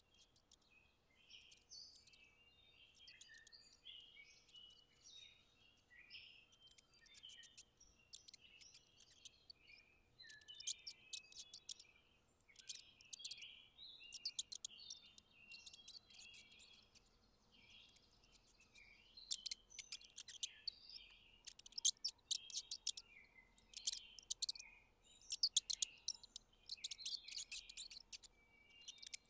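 Mice squeaking: many short, high chirps and quick runs of sharp chattering clicks. The squeaks become busier and louder about two-thirds of the way in.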